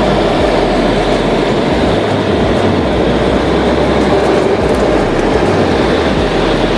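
Airliner cabin noise during landing: the steady, loud roar of the jet engines and rushing air heard from inside the passenger cabin.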